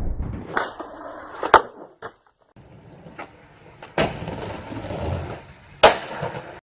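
Skateboard wheels rolling with sharp cracks of the board hitting and landing, three of them: about one and a half seconds in, about four seconds in and near the end. The sound breaks off briefly about two seconds in.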